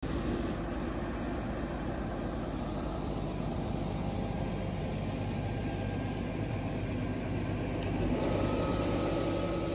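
Fendt 936 tractor's six-cylinder diesel running steadily while it pulls a slurry tanker that is spreading, a little louder near the end as the tanker passes close by.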